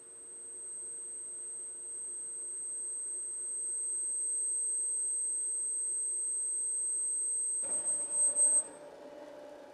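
Steady high-pitched electronic tone played by a small robotic smart object, cutting off about a second before the end, over a faint steady hum. Shortly before the tone stops, a mechanical whirr starts as the object begins to drive back to its base once its tone period is over.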